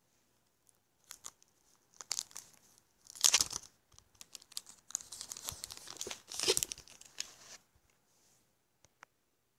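Thin plastic wrapping being peeled and crinkled off an Echo Dot smart speaker, in irregular bursts of crackling and tearing, loudest a little after three seconds in and again around six and a half seconds in.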